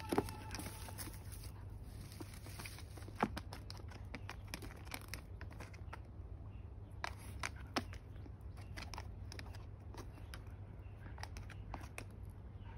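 Faint scattered clicks and light rustling from dogs moving about on a garden mat, over a steady low rumble.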